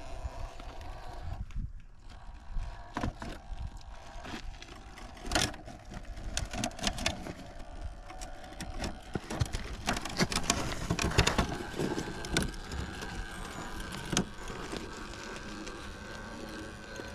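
Radio-controlled truck on JConcepts Tusk tyres running, with a faint steady motor whine and many sharp knocks and clatters, thickest through the middle.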